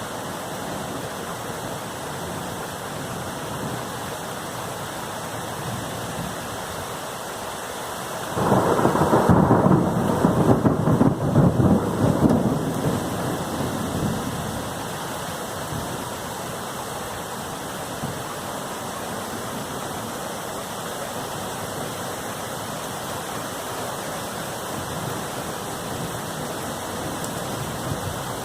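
Thunderstorm: steady rain throughout, with a sudden loud thunderclap about eight seconds in that rumbles on for several seconds and dies away.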